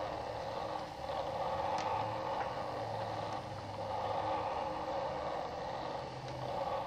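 A steady droning noise with a low hum beneath it and a few faint clicks.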